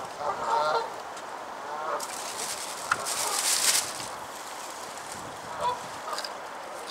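A goose honking, a short run of calls in the first second and fainter ones about two seconds in. A brief rush of noise follows about three seconds in.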